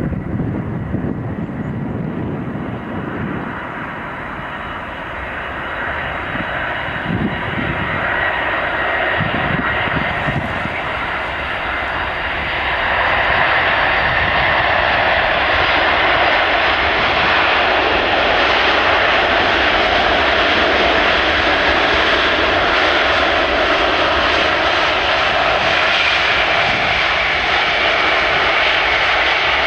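Antonov An-124-100 Ruslan's four turbofan engines during a landing, a steady jet noise that grows louder about a dozen seconds in and stays loud as reverse thrust is applied on the runway rollout.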